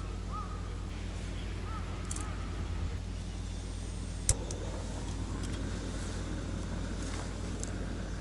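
A steady low mechanical hum, with a few short chirps in the first two seconds and one sharp click about four seconds in.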